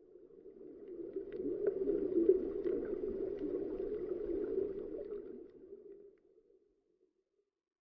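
Underwater ambience: a muffled rushing noise with faint scattered crackling clicks that swells up and then fades away about six seconds in.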